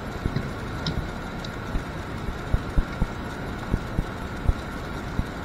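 Light knocks and small clicks of hands handling a small metal crimp terminal and a wire crimping tool, a few scattered taps over a steady background hiss.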